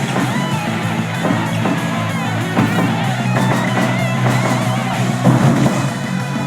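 Rock music with a drum kit and guitar, playing steadily.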